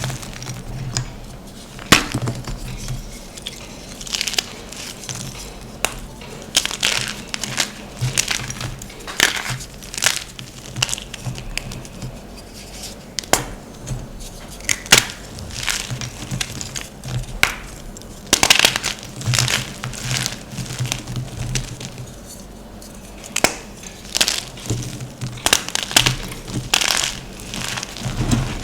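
Gym chalk being crushed and crumbled, an uneven stream of crunches and crackles with some sharper, louder cracks among them.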